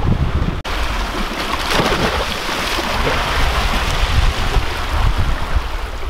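Wind buffeting the microphone over the rush of open-ocean water churning past a moving sailboat's stern and wake. The sound drops out for an instant under a second in, then the rushing carries on unbroken.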